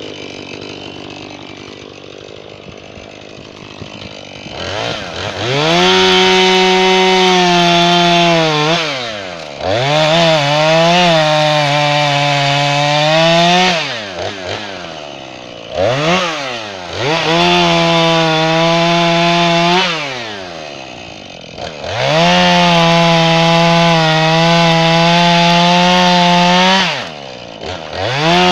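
Jonsered 2240 chainsaw idling, then opened up to full throttle and cut through red oak tops in four long bursts, with the engine dropping back toward idle between cuts. The pitch sags and wavers under load in each cut, and another burst starts near the end.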